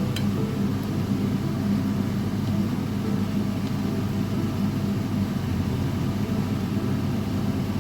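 Steady low rumble of a motor vehicle running, with a few faint ticks.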